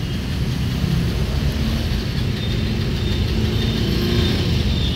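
Steady low rumble of motor traffic with a faint engine hum.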